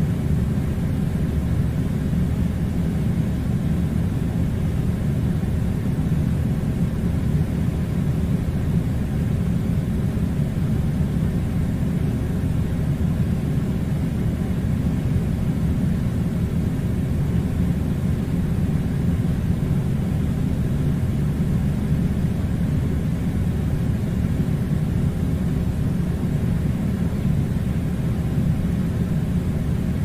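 Air conditioner running: a steady, unbroken low rumble.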